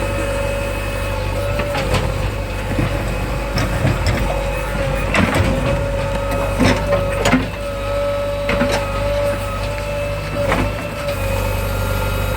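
JCB 3DX backhoe loader's diesel engine running steadily, with a series of sharp knocks and clanks over it.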